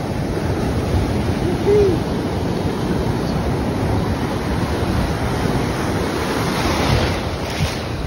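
Ocean surf breaking and foaming right around the microphone: a continuous rush of churning water. About two seconds in, a short pitched sound rises and falls once.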